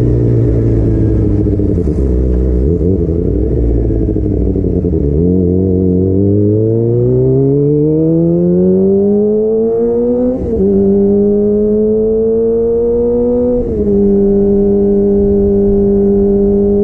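Kawasaki ZX25R's 250 cc inline-four running through a DX Generation Pro Race exhaust with the dB killer removed, heard from on the bike while riding. The engine note sags, then climbs steadily under acceleration. It drops suddenly twice, about ten and thirteen and a half seconds in, as the rider shifts up, and it then holds steady at cruising speed.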